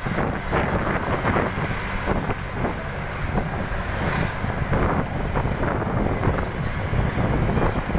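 Wind rushing over the microphone at a moving bus's window, over the steady low rumble of the bus on the road.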